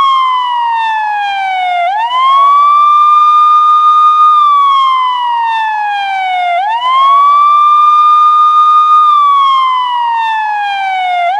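Police siren sounding its wail: a loud tone that climbs quickly, holds high for about two seconds, then slides slowly down before climbing again, about once every four and a half seconds.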